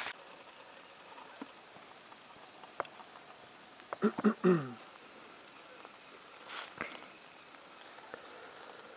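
A steady, evenly pulsing chorus of crickets in grassland, with a short sound falling in pitch about four seconds in and a few faint clicks.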